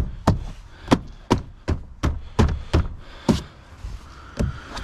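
Plastic interior door panel of a 2022 Toyota Corolla Cross being struck by hand to pop its retaining clips back into the door: a quick series of knocks, about two to three a second, then a pause and one last knock near the end.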